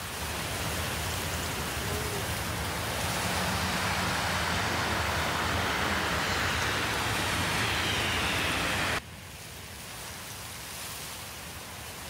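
City bus driving: steady road and motor noise with a low hum and a faint falling whine, cutting off abruptly about nine seconds in to a quieter hiss.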